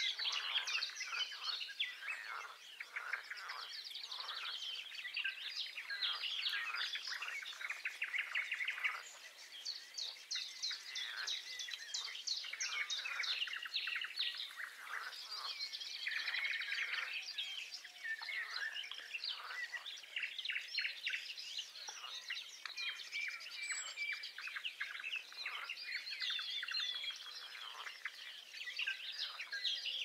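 Songbirds singing: a busy, unbroken stream of chirps, trills and whistles.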